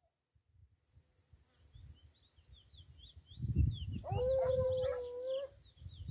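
A hunting dog baying in the distance in one long, steady, drawn-out howl about four seconds in: a hound giving tongue while working the cover for a paca. Short high chirps repeat rapidly through the second half, over a low rumble.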